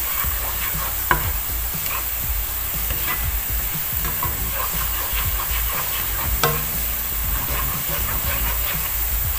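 Chopped onion sizzling in hot oil in a nonstick frying pan, being fried until brown, while a plastic spatula stirs and scrapes through it. Two sharper knocks of the spatula on the pan stand out, about a second in and again past the middle.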